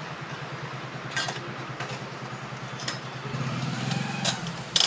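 A small engine idling with a fast, even pulse, growing louder for a moment near the end. Over it come a few light metal clicks from the stainless steel pipe chair frame being fitted together.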